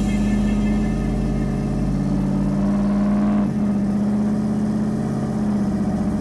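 Boosted V8 engine of a Ford F-150 Lightning pickup running steadily at highway speed. Its note changes suddenly about three and a half seconds in, then runs on steadily.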